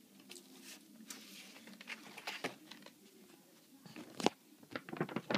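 Scattered clicks, taps and light rustling from handling an airsoft carbine and its packaging, with a sharper knock about four seconds in and a quick run of clicks near the end.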